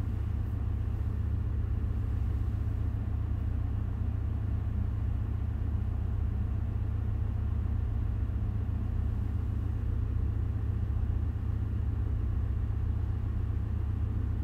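Steady low hum and rumble of a ship's engine-room machinery running.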